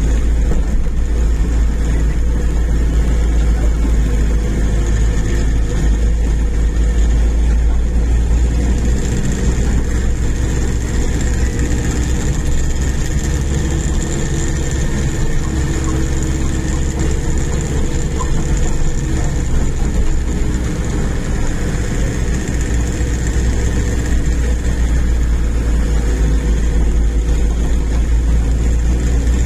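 Engine and road noise inside a moving vehicle's cabin: a steady low rumble without breaks.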